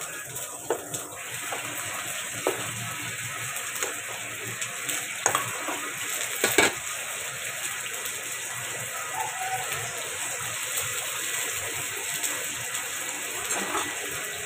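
Steady bubbling hiss of liquid cooking in a large stainless steel stockpot on an induction hob, with four sharp clinks of a metal ladle and lid against the pot in the first seven seconds.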